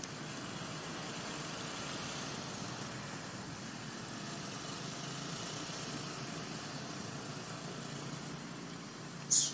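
Steady, low, engine-like hum with a faint hiss over it. One brief, sharp, high-pitched sound comes near the end.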